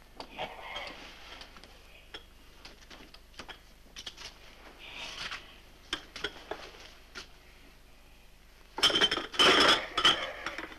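China plates and cutlery clinking on a carried tray, with soft light clinks throughout and a run of louder, ringing clinks near the end as plates are set down on a table.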